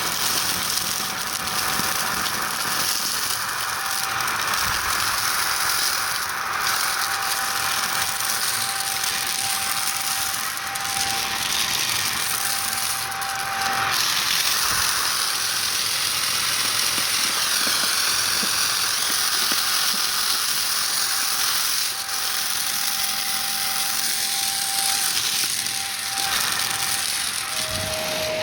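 Shark vacuum cleaner running with a steady motor whine, sucking up gritty debris that crackles and rattles through it. The whine drops to a lower pitch near the end.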